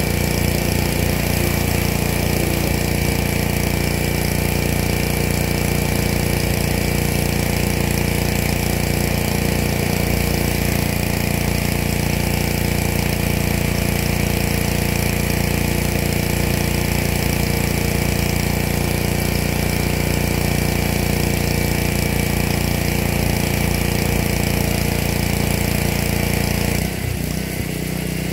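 Pressure washer running steadily, a constant motor-and-pump drone; near the end the sound dips slightly and shifts in pitch before settling again.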